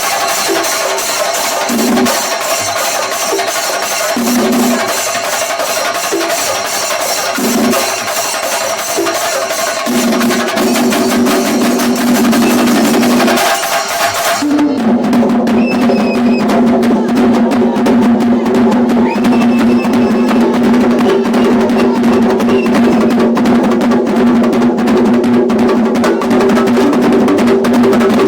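A singari melam ensemble playing: chenda drums beaten in fast rolls, with clashing cymbals that stop suddenly about halfway through. A steady low tone sounds in short bursts at first, then holds under the drumming through the second half.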